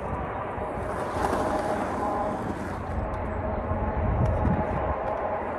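Skateboard on 92A urethane wheels rolling on rough concrete, a steady noisy rumble that swells about four seconds in as the board rides over the hump.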